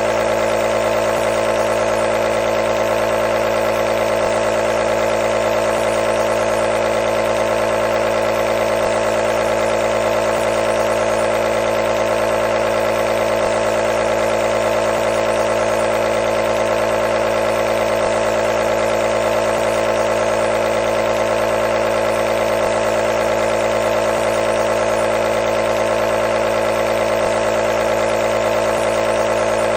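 Electric nebulizer's compressor running with a steady, even hum, unchanging throughout.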